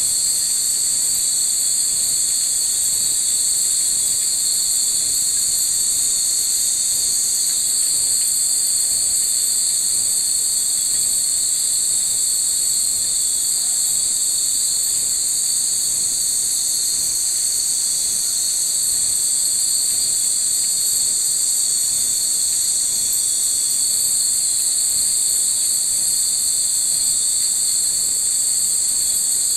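Steady, high-pitched chorus of many night-singing insects in the trees.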